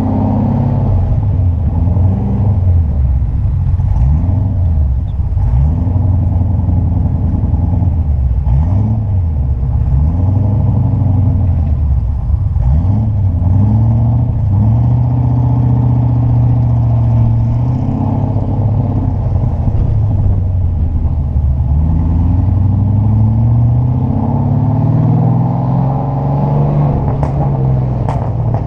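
Triumph TR7's 3.9-litre Rover V8 running through a single-bore exhaust, its engine speed rising and falling over and over in slow climbs and drops of pitch.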